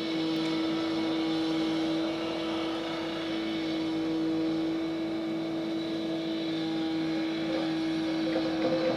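Road-construction machinery engine running at a constant speed, a steady droning hum that does not change pitch, with a few light knocks near the end.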